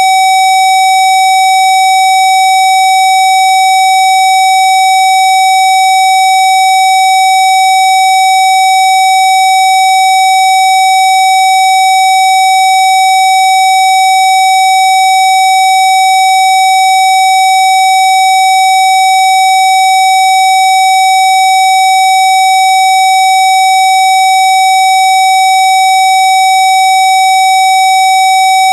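A steady, unbroken 760 Hz electronic test tone of the kind sold as a Rife healing frequency, played loud with higher overtones above it.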